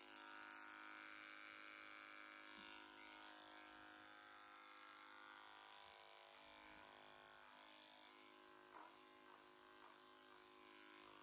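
Electric horse clipper running with a faint, steady hum as it trims the horse's winter coat on the face, with three brief faint sounds near the end.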